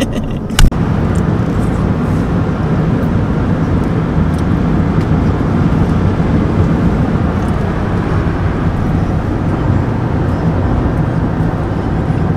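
Steady road and engine noise inside the cabin of a moving vehicle, a low rumble with a faint hum. A sharp, loud knock about half a second in.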